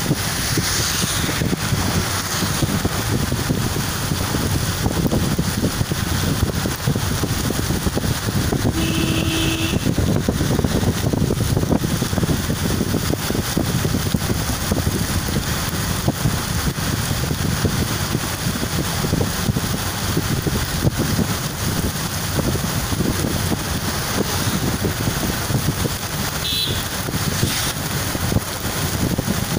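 Steady road noise from a moving vehicle driving on a wet road in rain, with a brief tone about nine seconds in.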